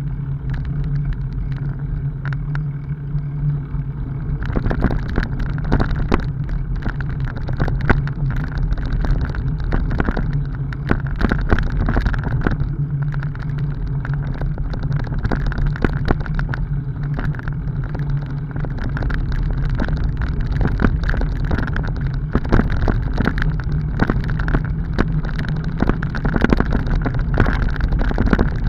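Bicycle riding along a rough dirt forest track: a steady rumble of tyres on packed dirt and gravel, with frequent rattles and knocks as the bike jolts over bumps.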